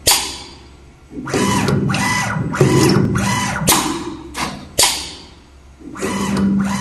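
CNC channel letter notching and bending machine at work: its feed motors whir in spells with short rising and falling pitch, broken by four sharp clacks from the notching and bending head.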